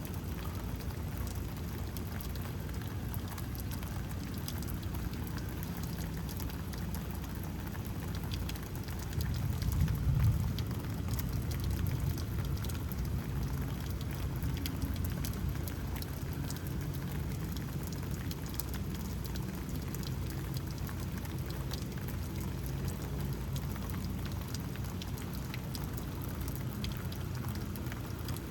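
Steady rain falling, with a brief low rumble of thunder swelling about a third of the way in.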